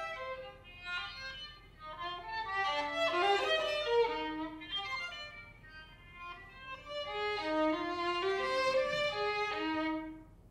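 Solo violin playing a contemporary classical piece: a fast succession of short bowed notes in phrases that swell and fade. The phrase stops abruptly near the end as the bow comes off the string.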